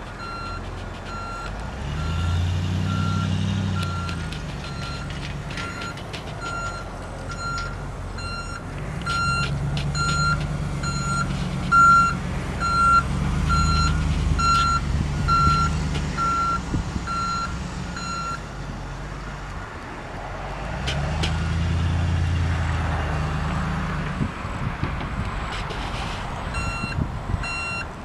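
A Dodge Ram 3500 pickup's 5.7-litre gas V8 runs as the truck drives, swelling several times with throttle. A back-up alarm beeps about twice a second over it, stops for several seconds, then starts again near the end.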